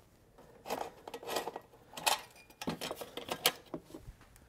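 Sheet-metal muffler being unscrewed and pulled off a two-stroke leaf blower engine, clinking and rattling against the cylinder and screwdriver in a few short irregular bursts.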